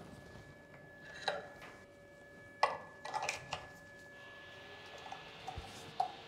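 Light metallic clicks and clanks as a router spindle is seated back into the SmartBench's aluminium Z-head mount and its cable plugs are handled. The sharpest knock comes about two and a half seconds in, with a few lighter clicks just after it and one more near the end.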